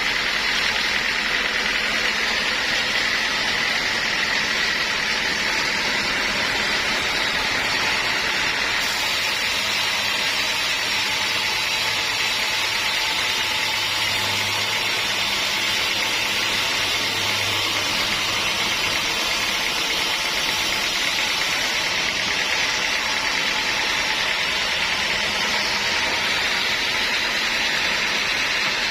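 Sawmill machinery running steadily: a constant hiss with a thin, steady high whine and no change in pace.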